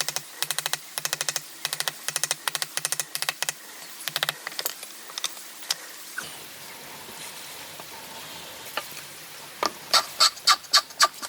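Hand tool working wood: bursts of quick rasping strokes, a pause, then steady, louder strokes about three a second near the end.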